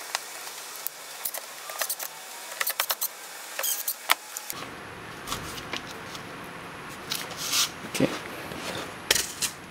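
Plastic clicks and rattles of hands refitting parts onto an electric polisher, sped up and thin-sounding. About four and a half seconds in, it gives way to slower handling knocks and the rustle of the power cord being moved.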